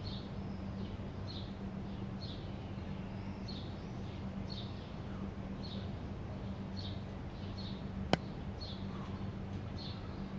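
A bird chirping over and over, short high chirps about once a second, over a steady low hum. A single sharp click about eight seconds in.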